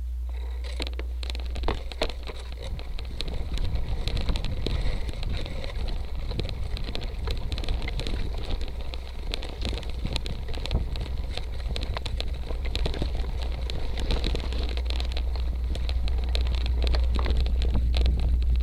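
Motobecane Fantom Cross cyclocross bike rolling over a rough dirt and sandy trail: tyre noise with a constant run of small clicks and rattles as the bike jolts over bumps, under steady wind rumble on the bike-mounted microphone. It gets louder near the end.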